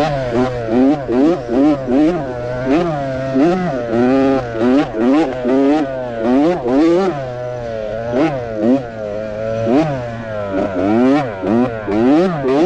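A kids' motocross bike's small engine revving up and dropping back over and over, about once a second, as the throttle is worked around the race track.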